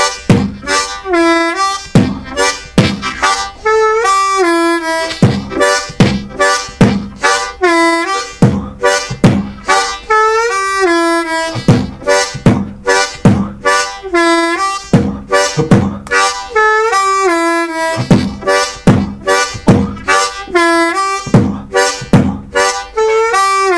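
Diatonic blues harmonica played with a beatboxed kick drum: a steady, slow rhythm of breathy kick thumps blown through the low chord on holes 1–2–3, alternating with drawn notes that are bent down and slide back in pitch.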